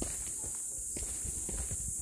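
Footsteps of a person walking down a concrete stair-path, a few irregular soft knocks with some low rumble, over a steady high-pitched hiss.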